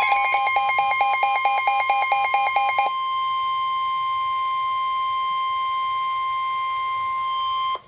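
Emergency Alert System attention tone from a NOAA Weather Radio broadcast: a rapid pulsing electronic beep over a steady tone until about three seconds in, then the steady 1050 Hz warning-alarm tone alone, which cuts off abruptly near the end. The tone signals that a severe thunderstorm warning follows.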